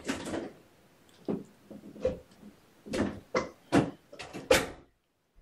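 A string of irregular knocks and clatters, about eight in all, the loudest one near the end.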